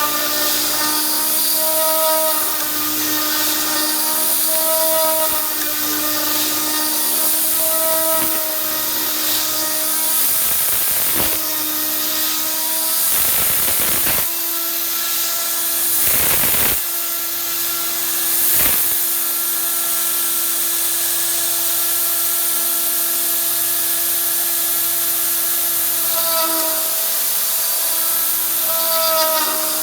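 RotoZip spindle, turned down on a Variac, running steadily while its bit mills aluminium on a DIY CNC router, a steady whine over a hiss. The pitch swells and dips about every second and a half as the cut loads and unloads, with a few sharp breaks in the middle.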